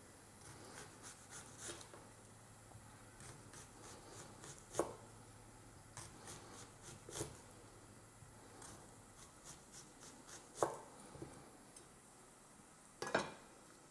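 Chef's knife slicing a whole onion into rings on a thick wooden cutting board: faint, irregular cuts with a few sharper knocks of the blade on the board, a couple of seconds apart.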